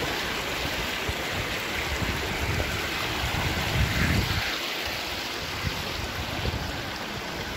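Shallow creek water running in a thin sheet over sandstone slabs and into small pools: a steady rushing, with a few low rumbles around the middle.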